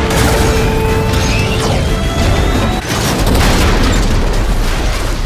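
Loud action-movie soundtrack: dramatic score with booms and crashing sound effects.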